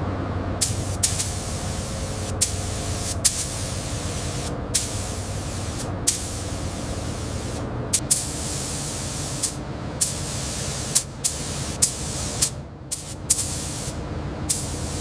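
Spray nozzle hissing in many short bursts over a steady low mechanical hum.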